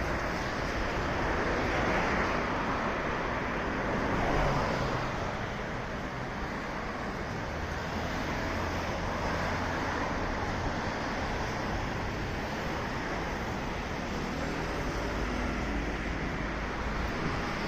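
Steady traffic noise.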